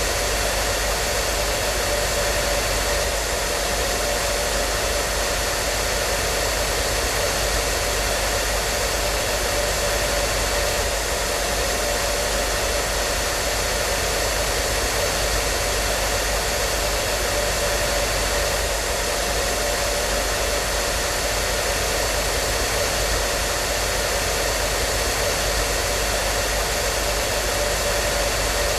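Hair dryer running steadily: an even rushing hiss of blown air with a constant motor hum.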